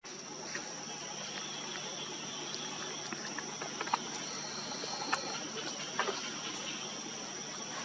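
Steady, high-pitched insect drone, with a few short, faint chirps and clicks scattered through it.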